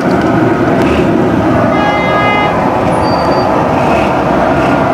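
Steady, loud street traffic noise, with a vehicle horn sounding for about a second near the middle.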